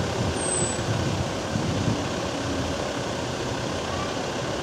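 Steady road traffic noise with a tram moving slowly along the track.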